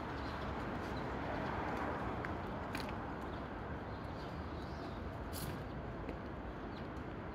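Steady outdoor background noise, an even rush with no clear source, with a few faint clicks about three and five and a half seconds in.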